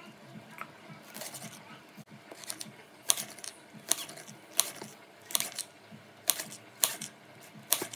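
Kitchen knife chopping spring onions on a chopping board: sharp clicks of the blade striking the board. They are faint and scattered at first, then come louder about once a second from about three seconds in.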